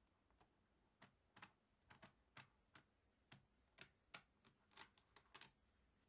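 Mini neodymium magnet balls clicking as a strand of them snaps, ball by ball, onto the side of a block of magnet balls. The run of faint, irregular clicks starts about a second in, about fifteen in all.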